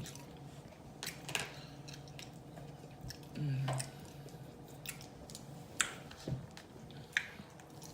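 Close-miked chewing with sharp wet mouth smacks and clicks scattered through. There is a short hum from the eater about halfway through.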